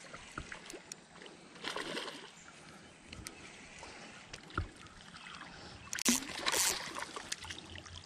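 A hooked fish splashing and thrashing at the surface as it is reeled in, the loudest splashing about six seconds in, with light ticks and running water between.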